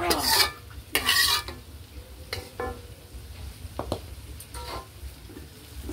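A metal spatula scrapes a wok and hot frying oil sizzles as it is spooned onto tomato sambal in a stone mortar. There are two loud scraping sizzles in the first second and a half, then softer clinks and knocks.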